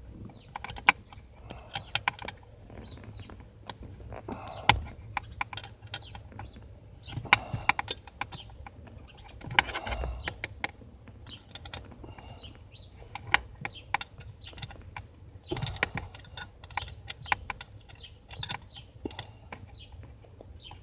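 Irregular sharp clicks and light scraping of a 90-degree offset screwdriver working at a stubborn, hard-to-reach screw behind a steering wheel.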